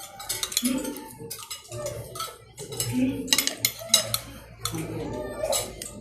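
Cutlery clinking and scraping against a plate in a run of irregular sharp clicks, mixed with close eating sounds.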